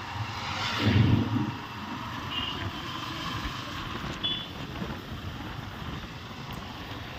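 Steady road and wind rush from riding on a moving motorcycle, with its engine and passing traffic. Two short high beeps sound a few seconds in.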